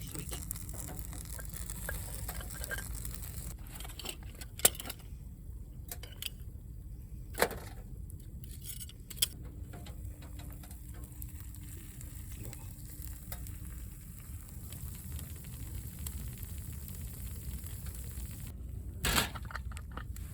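Food sizzling in a pan over a camp stove, with a few sharp knocks of utensils or cookware.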